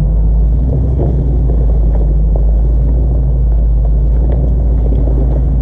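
Off-road vehicle running on a trail: a steady, loud low engine and drivetrain rumble mixed with wind buffeting the microphone.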